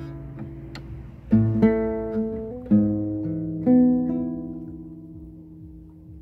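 Acoustic guitar played slowly: a few plucked chords in the first four seconds, the last one left ringing and fading away.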